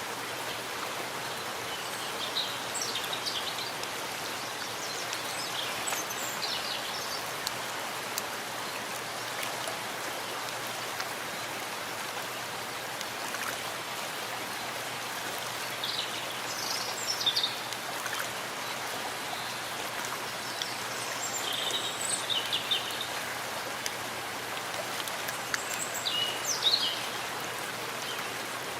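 Steady rain falling in a forest, an even hiss of drops. A bird chirps in short bursts several times through it.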